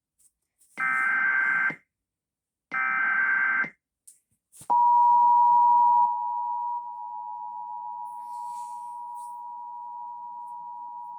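Emergency Alert System broadcast of a tornado warning: two one-second screeching bursts of SAME digital header data, then, about a second later, the EAS two-tone attention signal (853 and 960 Hz played together). The attention signal starts abruptly and holds steady, dropping a little in loudness after about a second and a half.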